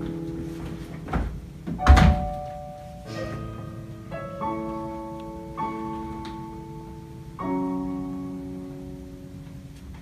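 Slow, held keyboard chords that change every second or two. About two seconds in, a heavy thump, with a smaller one just before it, as a suitcase is set down on the stage floor.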